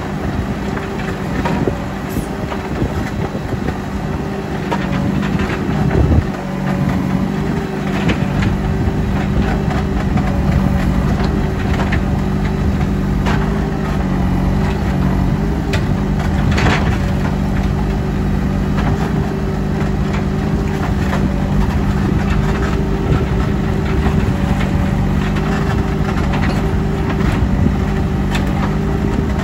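JCB 3CX backhoe loader's diesel engine running steadily, with occasional sharp knocks.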